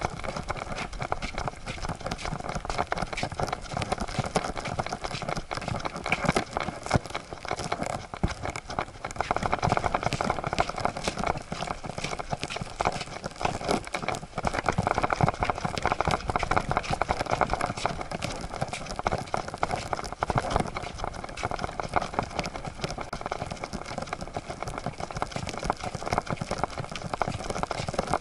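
Siberian husky walking on a wooden boardwalk: a fast, continuous clatter of paws and claws on the boards, picked up close by a camera strapped to its back, mixed with the rubbing and knocking of the mount against the dog's fur and harness.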